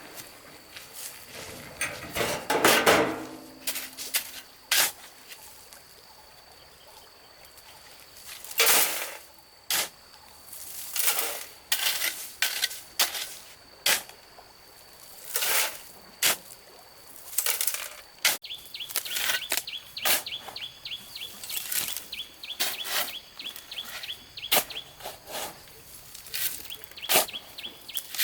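Irregular knocks and scrapes, as of hand work on soil and stones, with birds calling around them. About two-thirds of the way through, a fast series of short high chirps begins.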